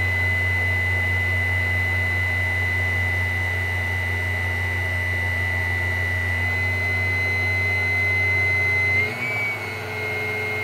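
Vitamix Commercial VM0115E blender motor running steadily, with a high whine over a low hum. About nine seconds in, the low hum drops away and the whine shifts slightly higher.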